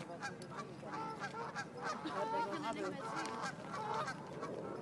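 A flock of waterfowl calling: many short, overlapping honking calls that keep going without a break.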